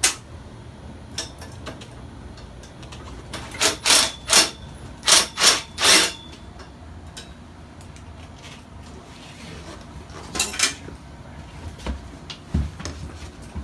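Sharp metal clanks and clinks: a quick run of about seven a few seconds in, then two more later, as tools and steel rigging hardware knock together.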